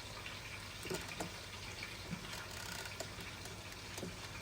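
Chicken frying in hot oil: a faint, steady sizzling hiss with a few scattered small pops.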